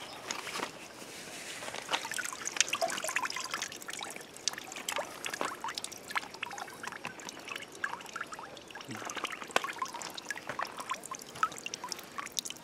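Water trickling and splashing in many small, irregular splashes and drips.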